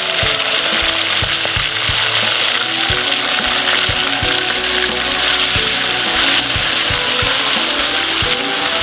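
Whole piranhas deep-frying in a wok of hot oil, a loud, steady, hissing sizzle.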